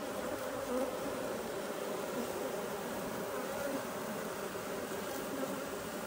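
Steady hum of a honeybee colony buzzing in an opened top-bar hive.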